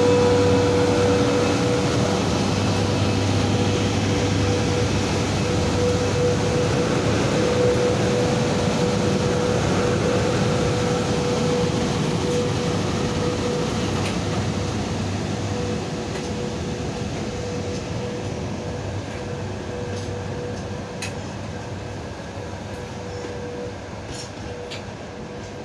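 VL80 two-section AC electric locomotive moving off from a standstill and rolling past, its steady electrical hum with one constant tone over a rumbling running noise. It fades slowly as the locomotive draws away, with a few faint clicks near the end.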